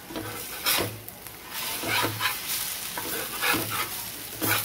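Flat spatula scraping under an uthappam on a dosa tawa, about six short scrapes, over the sizzle of the uthappam frying in oil.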